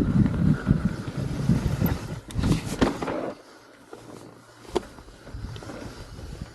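Mountain bike rolling over a rocky trail, with wind buffeting the camera microphone and a rumble of tyres and frame. The rumble drops off sharply about three seconds in, leaving quieter rolling with a few sharp clicks.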